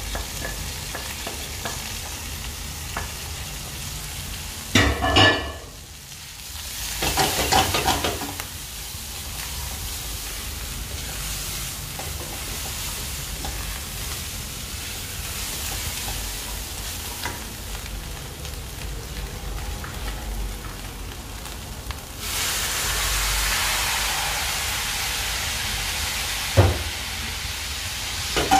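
Food sizzling as it fries in a pan, stirred and scraped with a utensil a couple of times early on. About 22 seconds in the sizzle grows louder and stays up, and near the end there is a sharp knock.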